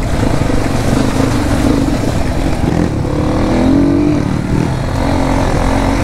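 Motorcycle engine running while riding, with a steady low rumble and a brief rise in pitch about halfway through.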